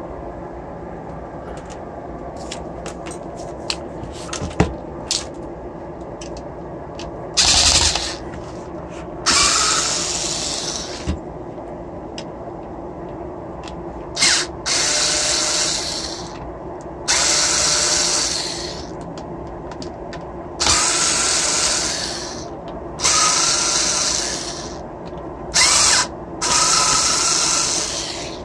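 Cordless electric screwdriver running in repeated short spurts of one to two seconds with a steady motor whine, often a quick blip followed by a longer run, as it backs the screws out of the aluminium end cap of an e-bike motor controller. A few light clicks of handling come in the first seconds.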